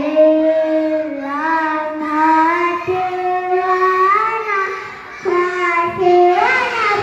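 Young children singing a song, with long held notes and a short pause a little after five seconds.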